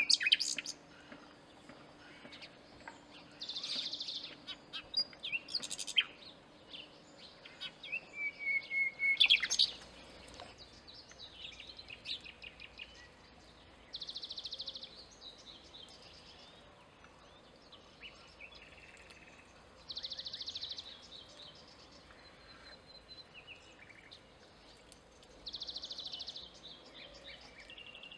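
Common nightingale singing in separate phrases a few seconds apart, mixing fast rattling trills, a clear whistled note and sharp clicking notes, with short pauses between phrases.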